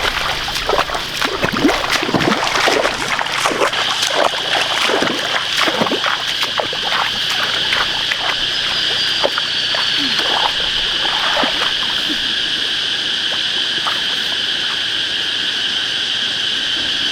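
Muddy water splashing and sloshing in irregular bursts, thinning out after about twelve seconds. Under it, a steady high insect drone sets in about four seconds in.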